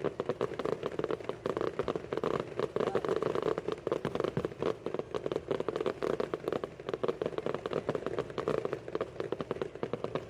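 Fireworks crackling: a dense, continuous stream of rapid small pops and crackles with no single big bang standing out.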